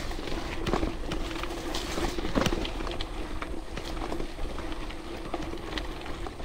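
Trek Supercaliber mountain bike riding on a rough dirt forest track: tyres crunching over the ground and the bike rattling with many irregular clicks and knocks, over a steady hum.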